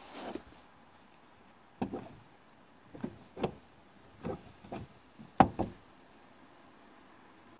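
Irregular knocks and thumps of bags and belongings being moved about in the back of a small car, heard from inside the cabin: about ten separate bumps with short pauses between them.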